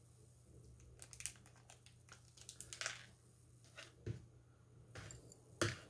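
Small plastic parts bag crinkling as it is handled and opened, with a few light clicks and taps, the sharpest just before the end.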